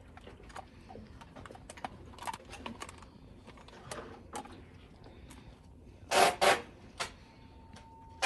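Light plastic clicks and taps from handling a small plastic mini washing-machine lash cleaner, then a foam pump bottle pressed, giving short loud squirts: two close together about six seconds in and another at the end.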